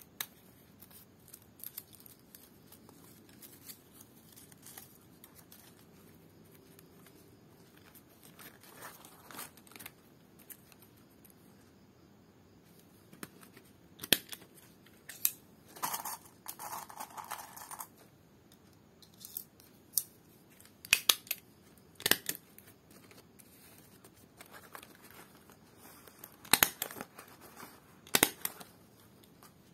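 A handheld stapler snapping shut again and again, driving staples through strips of dried lontar palm leaf, in sharp separate clicks that come mostly in the second half, some in quick pairs. In the middle there is a short crinkling rustle of the stiff leaf being handled.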